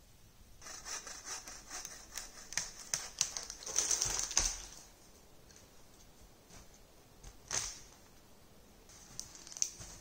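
Footsteps crunching through crusted snow: a quick, irregular run of crunches for about four seconds, loudest near the end of the run, then two single crunches later.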